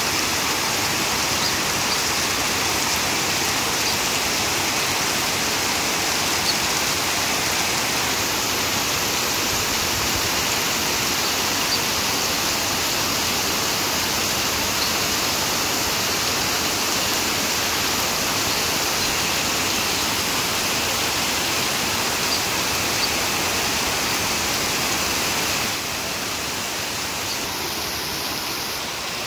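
Heavy rain pouring down onto the street and pavement: a dense, steady hiss that steps a little quieter near the end.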